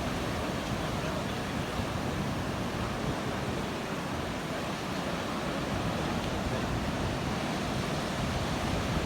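Steady noise of ocean surf breaking, with no single wave standing out.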